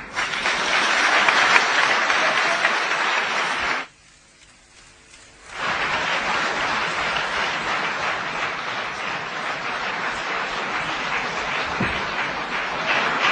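Large audience applauding. The clapping breaks off suddenly about four seconds in and comes back a second and a half later, then carries on steadily.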